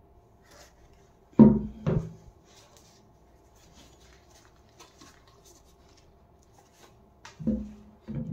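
Rubber-soled Puma MAPF1 Zenonspeed sneakers knocking down onto a wooden surface: two dull thumps in quick succession about a second and a half in, and two more near the end. Soft rubbing and handling noise comes in between.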